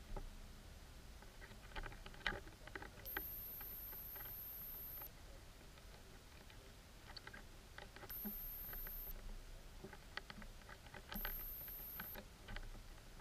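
Underwater sound picked up by an action camera: faint clusters of short clicks and ticks over a low rumble, with a thin high whine that comes on three times for a second or two.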